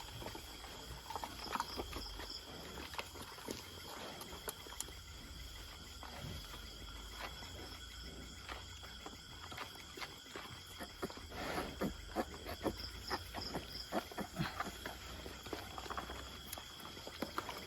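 Faint rustling and clicking from handling newborn piglets in a farrowing pen, with short low grunts from the pigs and a steady high insect drone behind.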